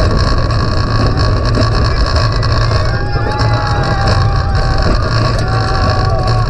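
Wind rushing over an onboard camera's microphone as a steel roller coaster train runs at speed, with the train's steady rumble on the track.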